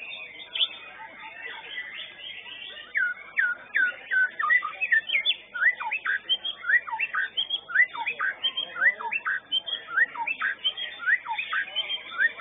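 White-rumped shama (murai batu) singing: a run of loud, repeated whistles that slide down in pitch, about one or two a second, starting a few seconds in, over a background of other songbirds chirping.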